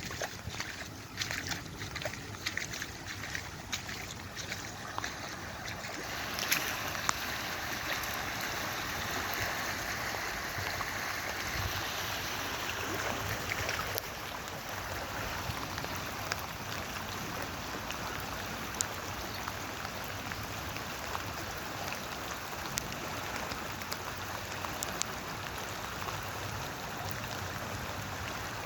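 Floodwater running in a steady rush, growing fuller and louder about six seconds in, with scattered small splashes.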